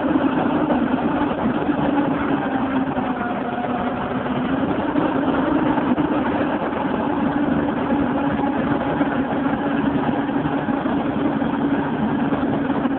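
Diesel engine of a truck-mounted boom crane running steadily at idle, a constant drone.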